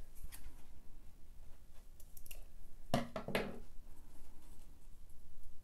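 Flat elastic and a pair of scissors handled on a hard tabletop: soft rustles and light clicks, with a louder clatter of sharp strokes about three seconds in.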